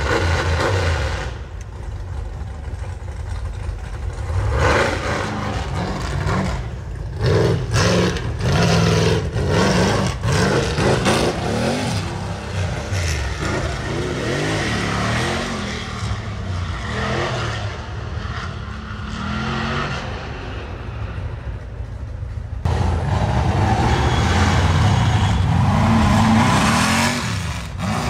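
Off-road rock-racing buggy engines revving hard and unevenly, the pitch rising and falling again and again, with some clatter. It gets louder about three-quarters of the way through.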